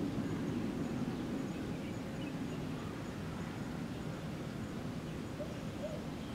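Low rumble of an electric train receding into the distance, slowly fading, with a few faint bird chirps near the end.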